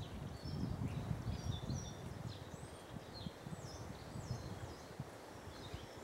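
Small songbirds chirping, a string of short high notes sliding up and down, over a low uneven rumble that is loudest in the first couple of seconds.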